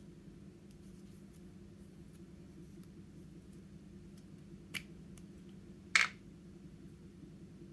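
Two sharp clicks over a faint steady hum: a small one, then a louder one about a second later.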